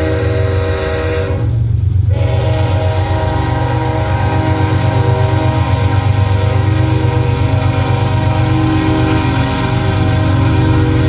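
GE ES44 diesel locomotives working a loaded hopper train as it gets under way, with a deep, steady engine rumble. Over it a locomotive air horn sounds as a steady chord. It breaks off about a second and a half in, then sounds again as one long blast.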